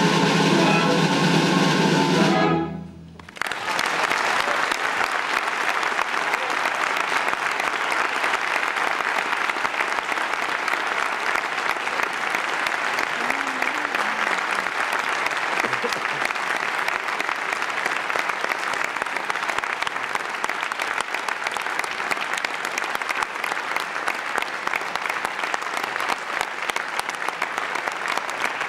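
Orchestra with a solo violin holds a chord that cuts off about three seconds in. Steady audience applause follows.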